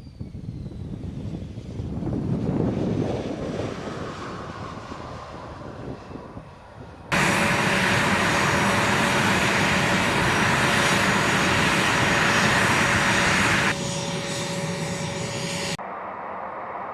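A-10 Thunderbolt II jet aircraft sound in edited clips. First a rumble swells and fades as the aircraft passes. Then, after an abrupt cut about seven seconds in, a loud steady jet engine noise runs for about six seconds, drops in level, and is cut off again near the end.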